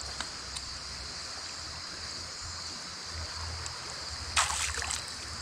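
Steady rush of flowing creek water, with a short, louder burst of noise about four and a half seconds in.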